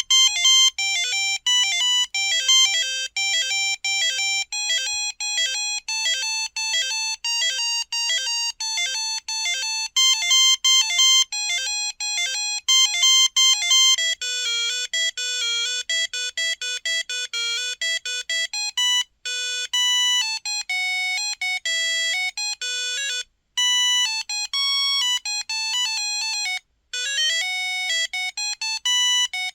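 Samsung Anycall SCH-X140 mobile phone playing monophonic ringtone melodies: a fast tune of beeping notes sounded one at a time. The melody changes about halfway, and there are short breaks in the last third.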